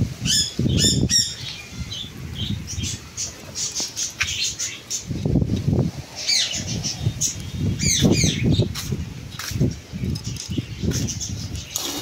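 Rose-ringed parakeets giving short, shrill chirps, several falling sharply in pitch, with bursts of wing flapping.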